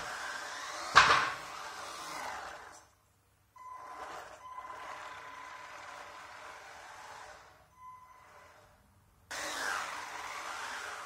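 Small UDI RC Breaker electric RC car driving on a concrete floor, its motor and tyres giving a steady noisy hum, with one sharp knock about a second in. The sound then drops away. A steady high whine holds for several seconds before the driving noise comes back strongly near the end.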